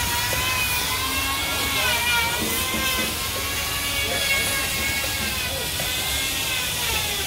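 A power tool's motor whining steadily at high pitch, its pitch dipping briefly about two seconds in and again near the end, over a low rumble.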